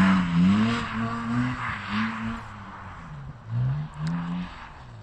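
BMW E90 330i's straight-six engine revving up and down repeatedly as the car slides through the snow, with a hiss of tyres on snow. The sound fades as the car pulls away.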